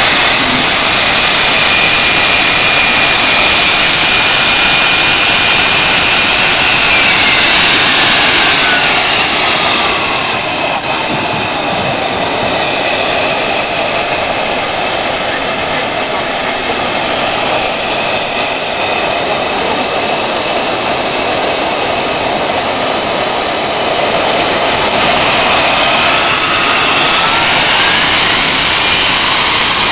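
RC model jet turbine engine running loud and steady with a hissing whine; the whine slides down in pitch around a third of the way in and climbs again near the end as the turbine's speed changes.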